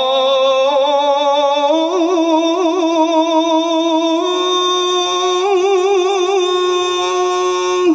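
A man's voice chanting the adhan, the Islamic call to prayer, in one long melismatic held note. The pitch steps up twice and is decorated with trills, and the note breaks off near the end.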